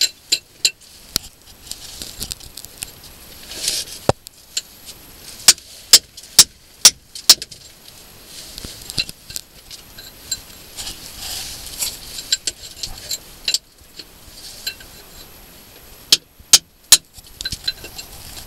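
Hammer striking a steel chisel against cave rock, sharp metallic blows coming in quick runs of three to five with pauses between: rock being chipped away to widen a blocked cave passage.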